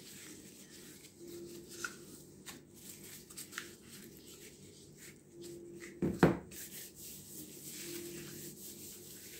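Flour shaken from a plastic tub onto wet bread dough, with soft rustling of plastic gloves and wrap and small clicks as the tub is handled. One louder knock about six seconds in.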